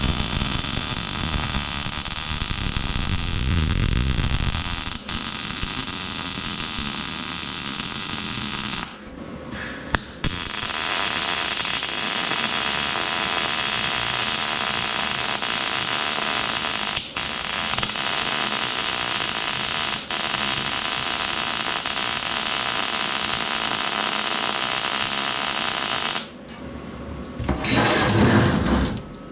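Arc welding with a Vulcan OmniPro 220 welder: a steady arc hiss in two long beads, about nine seconds and then about sixteen seconds, with a short break between them. A shorter, louder noise follows near the end.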